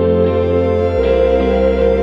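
Background music: ambient guitar with echo effects over sustained bass notes that change about once a second.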